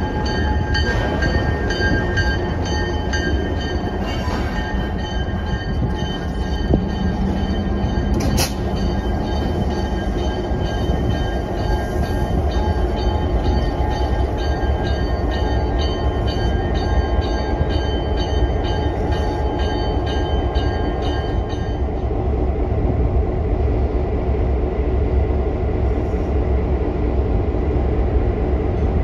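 CN diesel road-switcher locomotive rumbling slowly past at a crawl, with a bell ringing steadily until it stops about three-quarters of the way through. One sharp clank about eight seconds in.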